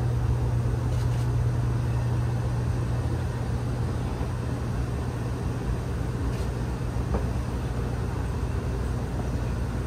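Steady low mechanical hum over an even background rumble, with no change in pitch or level.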